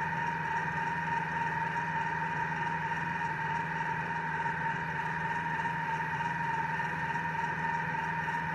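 Steady machine hum with a constant high tone and a lower drone, unchanging throughout.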